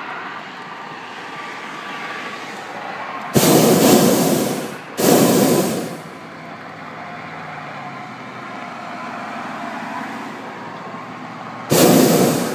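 Hot-air balloon's propane burner firing: two roaring blasts about three and a half seconds in, each a second or so long with a short gap between, and another blast starting near the end.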